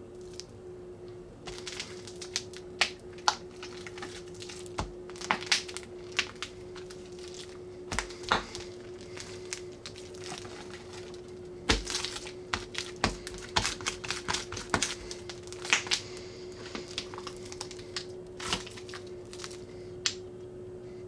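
Food slime being squeezed and stretched by hand, giving irregular sticky pops, clicks and crackles in clusters, over a steady faint hum.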